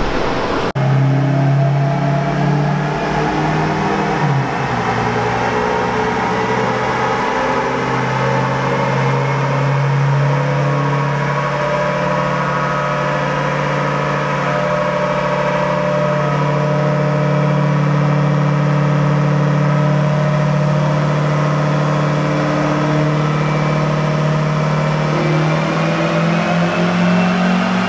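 L5P Duramax 6.6 L V8 turbodiesel with an S369SXE turbo running under load on a dyno run. Its note holds steady for most of the time, then climbs over the last few seconds as a faint high whistle rises above it.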